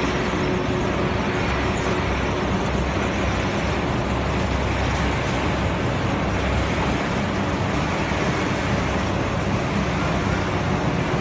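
Continuous peanut frying line running: a steady, unbroken machine hum and hiss with no pauses or impacts.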